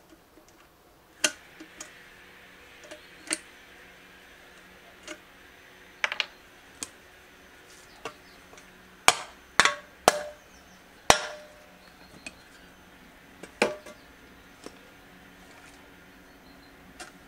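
Irregular sharp metal knocks and taps on an old Soviet steel shovel blade as a broken, dried-out wooden handle stub is worked out of its socket with hand tools. A quick run of louder knocks comes a little past halfway.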